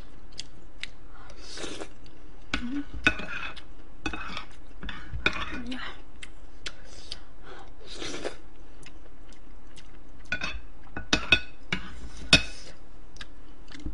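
A spoon clinking and scraping against ceramic serving plates as food is scooped up. The clinks come irregularly, with a few sharper knocks near the end.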